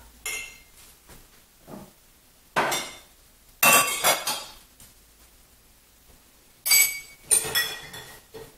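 Glass tumblers and mugs clinking and knocking as they are lifted out of a dishwasher's top rack and set onto a cupboard shelf. The sharp clinks come in small clusters every second or two, and some leave a short glassy ring.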